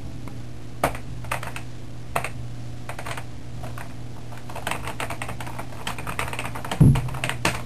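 Computer keyboard keys clicking irregularly, quickening in the second half, with one dull knock near the end, over a steady low hum.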